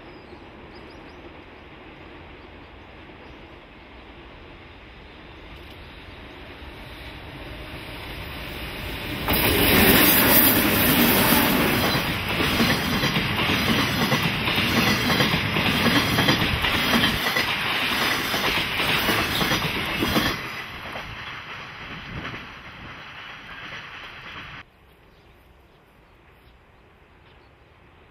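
Container freight train hauled by JR Freight EF64 electric locomotives running past close by: the noise builds as it approaches, turns loud about nine seconds in as the locomotives reach the spot, and the wheels roll on over the rails as the container flatcars pass, before fading and cutting off suddenly near the end.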